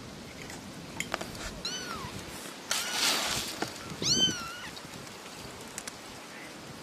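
Kitten meowing twice: two short, high-pitched meows that rise and fall in pitch, about a second and a half and four seconds in. Between them comes a loud burst of noise lasting under a second, and a few light clicks.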